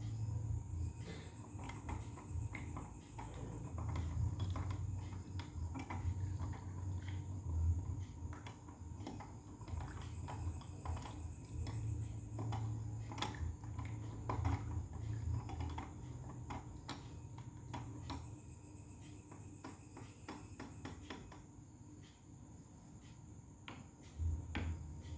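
Light, irregular clicks and knocks of kitchenware being handled, over a faint steady hum.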